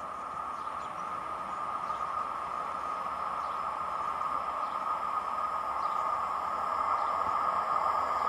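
Approaching regional train hauled by an electric locomotive, heard from beside the track: a steady rushing hum of wheels on rails that grows steadily louder as it nears.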